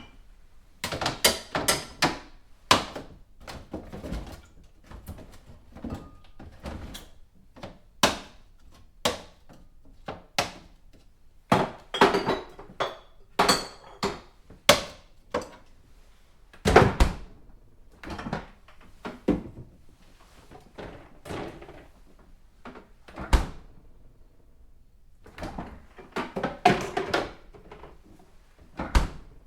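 Someone rummaging through a refrigerator: items knocked and shifted about in irregular clusters of clatters and thunks, with a few louder single knocks standing out.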